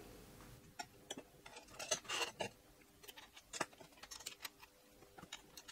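Scattered light metallic clicks and taps as a linear rail is handled and set against the aluminium extrusion frame of a 3D printer.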